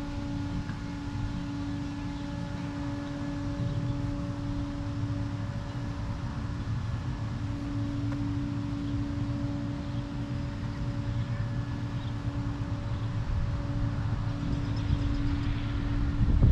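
Outdoor ambience: a steady hum with faint overtones over a low rumble, with wind buffeting the microphone more strongly near the end.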